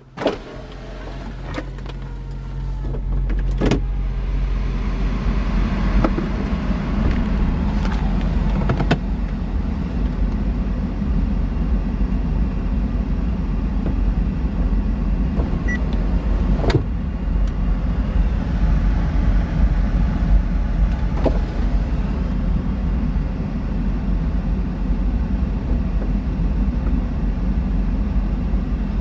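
2015 Audi RS5 Cabriolet's electro-hydraulic soft top in motion: a steady motor-and-pump whir as the fabric roof folds down and then rises back over the cabin. Several sharp clunks and clicks of the roof mechanism come along the way.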